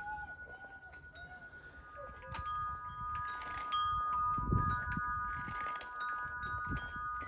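Wind chimes ringing: several chime tones overlap and keep ringing, with fresh strikes about two seconds in.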